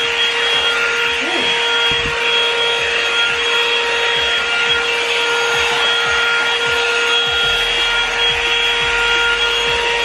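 Revlon One-Step hot-air brush hair dryer running on its high setting: a steady rush of air with an unchanging motor whine, loud.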